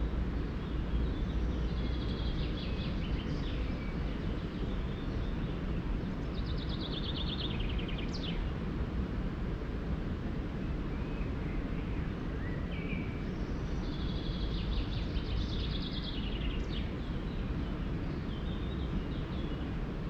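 A songbird sings short, fast trilled phrases several times, one falling in pitch and ending in a quick downward sweep. Under the birdsong runs a steady low rumble.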